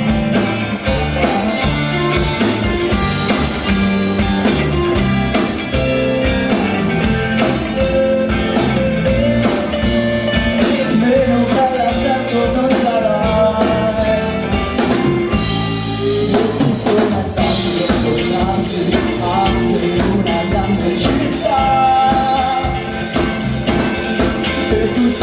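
A pop-rock band playing with a steady drum-kit beat under a melodic lead line, between sung verses of an Italian song.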